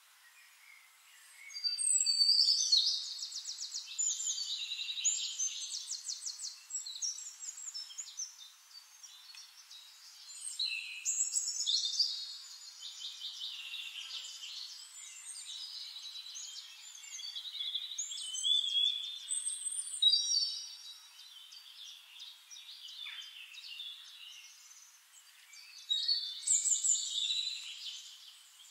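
Songbirds singing: several bouts of high, rapid trilled song, with fainter chirps in the gaps between them.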